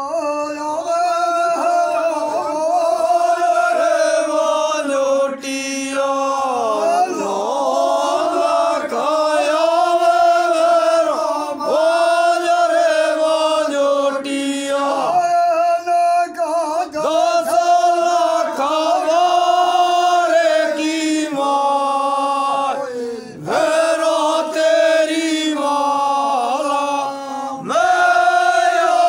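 A group of men singing a devotional chant together, loud, with long held notes sung in phrases and brief breaks between the lines.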